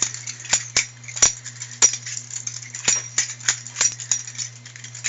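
Butterfly knife (balisong) being flipped and spun, its handles and blade clicking against each other in a quick, irregular series of sharp metallic clicks.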